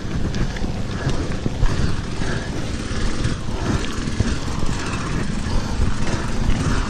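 Mountain bike rolling fast on a dirt trail: steady low tyre rumble with frequent short rattles and knocks over bumps, mixed with wind noise on the microphone.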